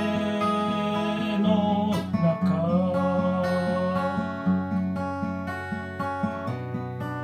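Music: acoustic guitar strumming through an instrumental passage of a song. Over it runs a held melody line that slides up between notes about two seconds in.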